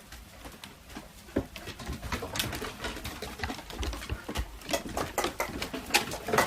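Pigeons cooing while they feed, with a growing run of quick, sharp clicking taps from about two seconds in, as beaks peck at grain.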